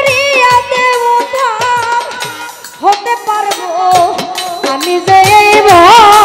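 Bengali baul folk song: a woman singing with vibrato over a steady drum beat and accompanying instruments, the music swelling louder about five seconds in.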